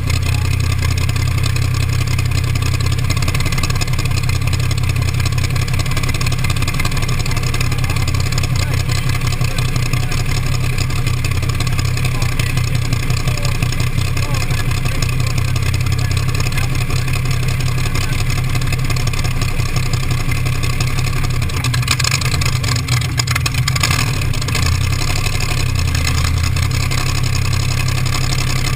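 T-bucket hot rod's engine running steadily at an even engine speed, its sound mostly low-pitched and without big revs or pauses.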